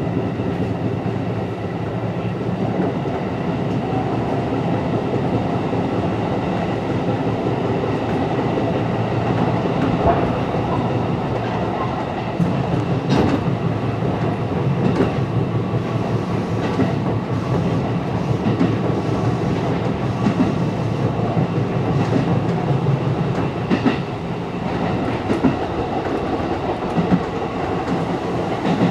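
Seibu 101-series electric train running, heard from the driver's cab: a steady rumble of motors and wheels on the rails, with occasional sharp clacks from the wheels over the track.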